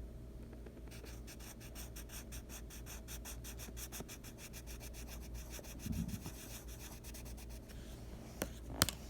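Rapid, even scratching or rubbing, about eight or nine strokes a second, over a steady low hum, with a dull thump midway and two sharp clicks near the end.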